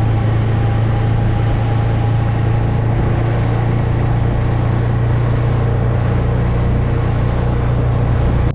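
Snowmobile engine running at a steady cruising speed while riding: a constant low drone over a steady rushing noise.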